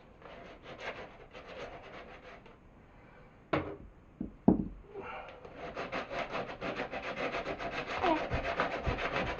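Wood being abraded by hand in rapid, even back-and-forth scraping strokes, working down a slight curve in the board. Two sharp knocks come in the middle, the second the loudest.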